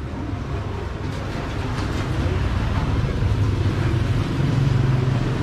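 Steady low rumble of urban street traffic, slowly growing louder toward the end.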